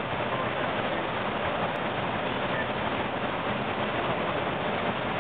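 Steady rushing flight-deck noise of an Airbus A321 in flight on approach.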